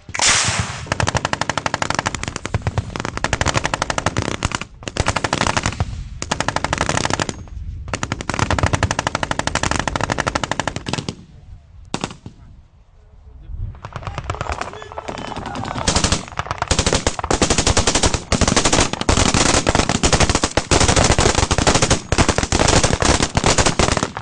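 Several automatic weapons firing long, overlapping bursts. The firing breaks off briefly a few times and slackens for about three seconds a little before halfway, then picks up again and runs dense and continuous.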